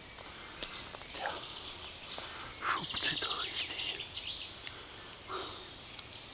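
Woodland ambience with a bird giving a short, rapid chattering call around three seconds in, plus a few soft knocks and rustles.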